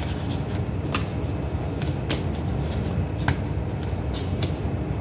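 Tarot cards being shuffled by hand: short, soft flicks and taps of card against card, about one a second, over a steady low background rumble.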